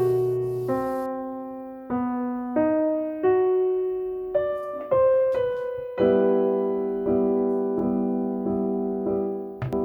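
Background piano music: a slow melody of single notes, then repeated chords about once a second.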